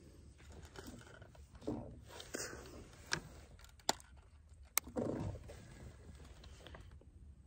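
Fishing line and tackle being handled while a leader is tied up: faint rustling and handling noise, with three sharp clicks around the middle.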